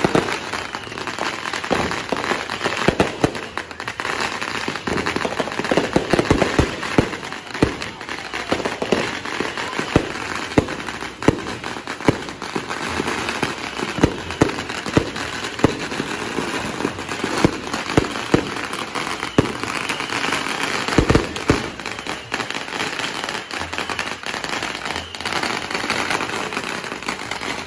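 Aerial fireworks going off overhead: many sharp bangs at irregular intervals over continuous crackling.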